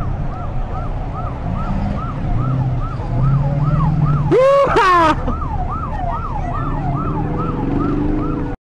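Siren wailing in a fast rise-and-fall cycle, about two to three times a second, over the low rumble of vehicles. About four seconds in, a louder, brief sound slides in pitch. The sound cuts off abruptly near the end.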